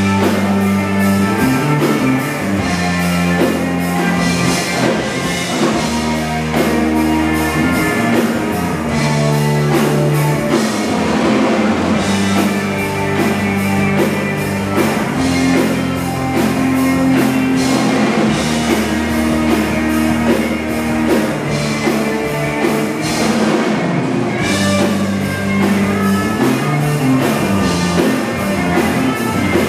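A rock band playing live: electric guitar and bass over a drum kit keeping a steady beat, with cymbals crashing.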